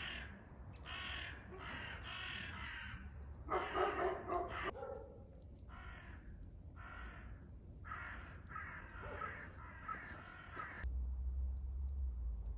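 Crows cawing, about a dozen harsh calls in an uneven series, some close together in pairs. The calls stop about eleven seconds in, and a low rumble sets in.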